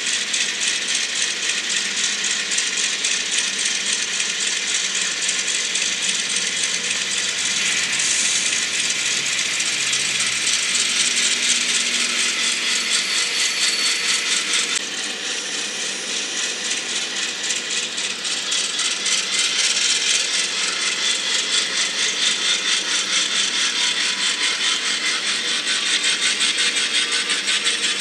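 N-scale model diesel locomotives and cars rolling along the track at close range: a steady, rapid clicking rattle of wheels and geared motors. The level drops slightly about halfway through.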